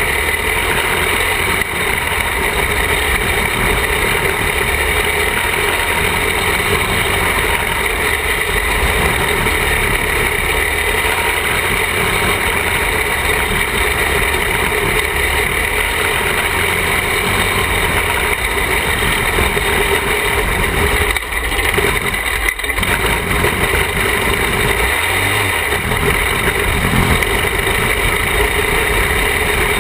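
Engine of a small roll-caged dirt-track racing car running steadily under load while lapping, with two brief dips in the sound about 21 and 22 seconds in.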